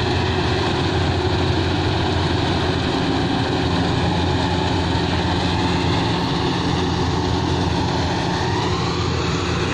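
Rice combine harvester's engine running steadily under load, its note sagging slightly and picking back up about eight seconds in.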